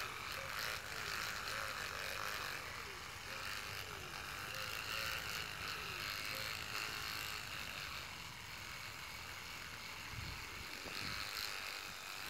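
Electric toothbrush buzzing steadily as its head is run along a chrome grille strip coated in toothpaste, polishing the trim.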